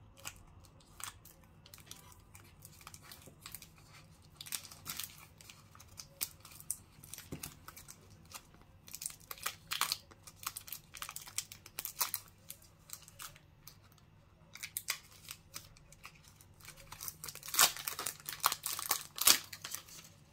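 A KitKat Key Lime Pie candy-bar wrapper being torn open and crinkled by hand: irregular crackles and rustles, loudest near the end as the bar is pulled free.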